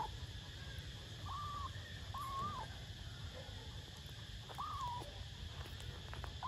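Small kitten giving short, high mews while it gnaws at a piece of bread, three times, each a brief level cry that drops at the end. A steady low rumble of background noise sits underneath.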